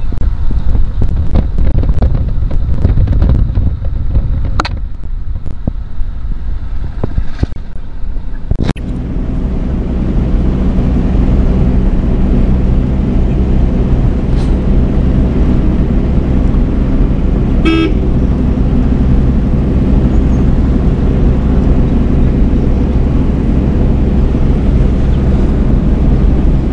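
Car engine and road noise heard inside a moving car: uneven rumble and knocks for the first nine seconds or so, then a steady drone. A vehicle horn toots briefly about eighteen seconds in.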